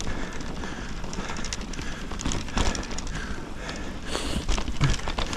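Mountain bike ridden through snow over buried rocks: tyres crunching in the snow, with scattered knocks and rattles from the bike.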